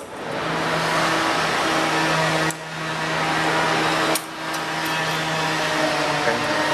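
A steady motor-driven whir with a low hum. It cuts out abruptly twice, about two and a half and four seconds in, and spins back up each time.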